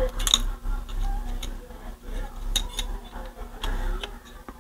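Scattered small clicks and taps of parts and tools being handled while a replacement laser pickup is fitted into a CD player's disc transport, over a steady low hum.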